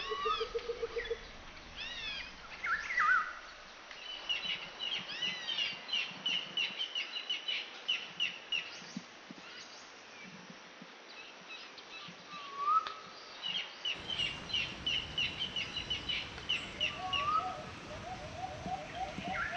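Several birds calling: rapid trills of repeated notes, chirps and short down-slurred whistles, over a steady background hiss. About two-thirds of the way through, the background grows fuller and lower.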